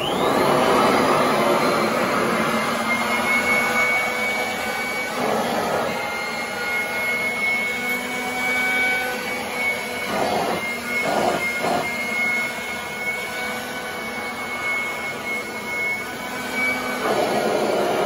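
Royal commercial upright vacuum running on its highest setting as it is pushed over carpet: a rush of air under a steady high whine, loudest near the start and changing a few times as the strong suction pulls loose carpet up against the nozzle.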